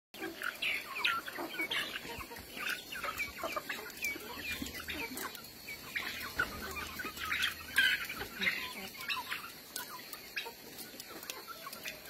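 A flock of chickens, black Kadaknath birds among them, clucking while feeding. Many short calls overlap, busiest through the first eight seconds and thinning out after.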